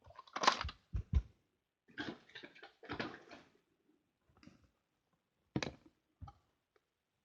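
Makeup packaging and a plastic eyeshadow palette being handled: a few sharp clicks and knocks, a stretch of rustling and scraping, then two more knocks near the end.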